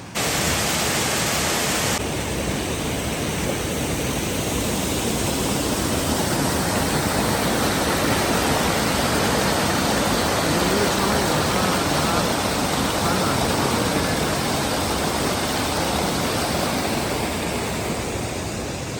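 Rushing river water: a loud, steady noise that cuts in suddenly at the start, brighter for the first two seconds.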